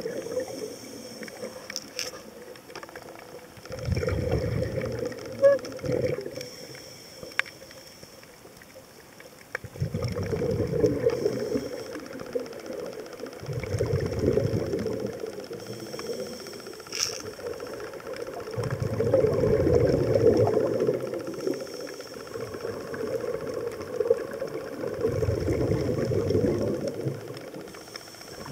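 Scuba regulator exhaust bubbles heard underwater: a bubbling rumble that swells up each time a diver breathes out, about every four to five seconds, with quieter spells between breaths and a few faint clicks.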